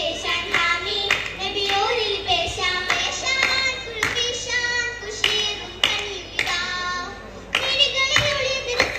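Oppana performance: a group of girls singing a Mappila oppana song in chorus, with sharp hand-claps in unison roughly every half second keeping the rhythm.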